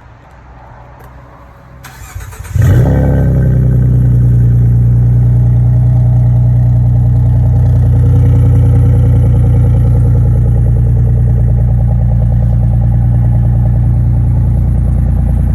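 2015 Ford Mustang's 3.7-litre V6 through a Roush aftermarket exhaust, cranking about two seconds in, catching with a brief rev flare, then idling steadily and loudly. The owner says it sounds like a V8.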